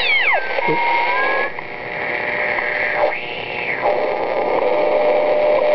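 Sproutie homebrew HF regenerative receiver being tuned across the shortwave band, its internal speaker giving steady hiss. Heterodyne whistles sweep down in pitch at the start as signals pass through, a brief arching whistle follows about three seconds in, and a steady whistle holds from about four seconds on.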